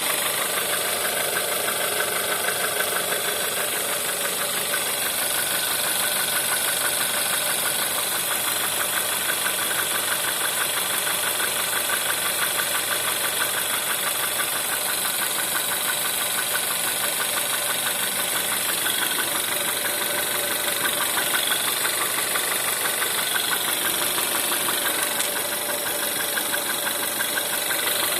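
Volkswagen 1.4 TSI (CAVD) four-cylinder petrol engine idling steadily with a fast, even knock over the running: the cold-start knock this engine is known for.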